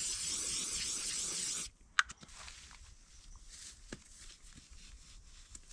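A fastener ripped open in one long pull lasting about two seconds, ending abruptly, then a single sharp click and faint rustling of handling.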